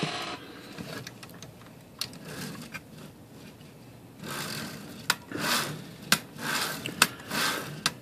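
The carriage mechanism and freshly oiled mainspring drum of a Remington Remie Scout manual typewriter, working as the drum turns: light clicks at first, then from about halfway through, repeated rubbing with a sharp click roughly once a second.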